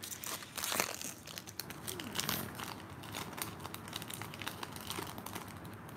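Foil Pokémon booster pack wrapper crinkling and tearing as it is pulled open by hand, busiest in the first second.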